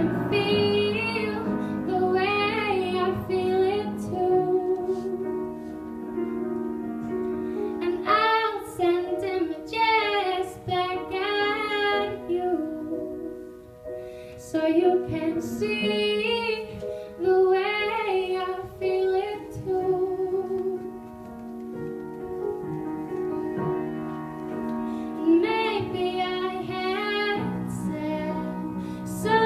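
A young woman singing a slow song solo into a handheld microphone, in phrases separated by short pauses, over held chords of an instrumental accompaniment.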